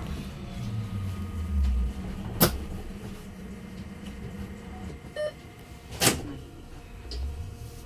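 Heuliez GX337 battery-electric city bus on the move, heard from inside the cabin: low road rumble under a steady motor hum. Two sharp knocks come about two and a half and six seconds in, and a short electronic beep sounds just after five seconds.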